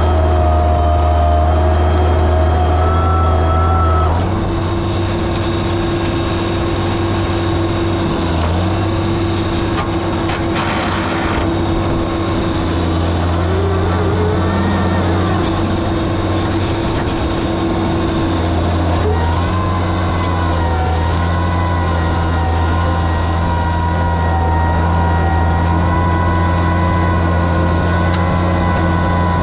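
Oliver 77 tractor's six-cylinder engine running steadily under load as it pulls a plow through the soil. Its note changes slightly about four seconds in and again just before twenty seconds.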